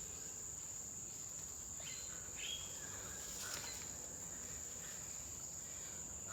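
Forest insects keep up a steady high-pitched drone, with a few faint short chirps about two to three seconds in.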